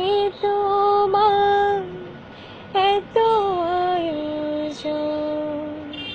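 A woman singing long drawn-out notes without words, the close of a Bengali folk-style song line. One note is held, there is a pause about two seconds in, and then the phrase steps down in pitch to a long low note.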